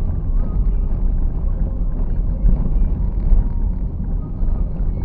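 Steady low rumble of a car driving on a paved street, engine and road noise picked up by a dashcam microphone inside the cabin.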